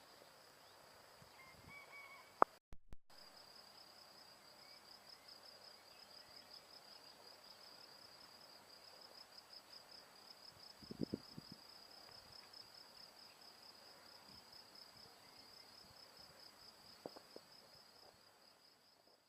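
A cricket trilling steadily, a fast, even, high-pitched pulsing that starts about three seconds in after a brief break in the sound. There are a few faint bird notes just before the break and a few soft knocks later.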